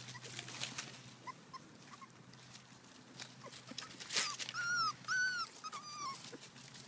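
Brittany puppy giving three short, high whining yelps about two-thirds of the way in, the first two rising and falling. Rustling and scuffling of paws in grass and fallen leaves runs throughout.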